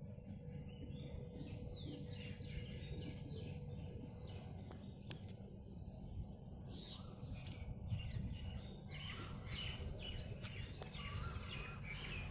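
Several birds chirping and calling at once in the morning, with many short, overlapping high chirps over a steady low background rumble.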